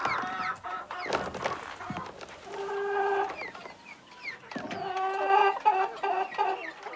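Chickens clucking, in repeated runs of short pitched calls, with a few brief high, falling notes among them.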